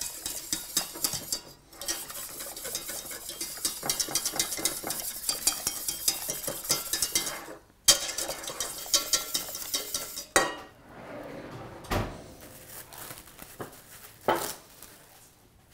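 Wire whisk beating fast against the inside of a stainless steel pot, whisking hot stock into a dark roux to make the sauce smooth. The whisking gives a quick run of metal clicks and scrapes that breaks off briefly, goes on, then stops. It is followed by three separate knocks of dishes being handled.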